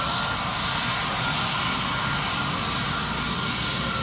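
Airbus A320neo's Pratt & Whitney PW1100G geared-turbofan engines running at taxi power: a steady jet rush with a high whine held on one pitch.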